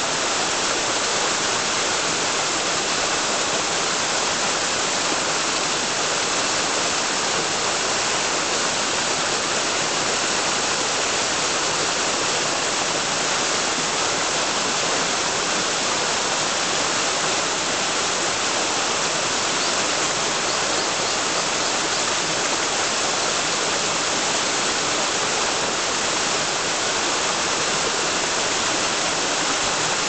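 Small waterfall cascading down a rocky slope: a steady, unbroken rush of falling and splashing water, bright and hissing, that never changes in level.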